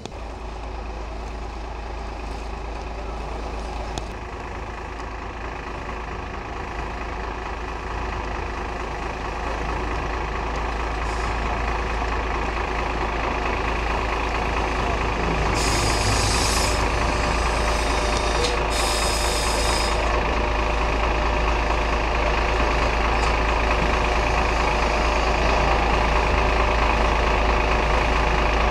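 Sheffield Supertram Siemens-Duewag tram standing at a stop, its equipment running with a steady low drone that grows louder over the first two-thirds. Two short bursts of hissing come about 16 and 19 seconds in.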